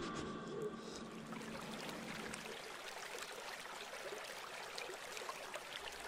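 Faint, steady sound of river water flowing, with light trickling.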